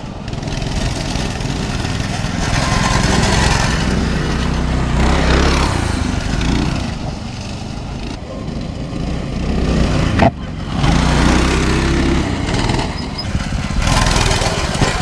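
Small single-cylinder mini bike engines, around 200cc, running and revving as the bikes ride around, rising and falling in loudness, with a brief break about ten seconds in.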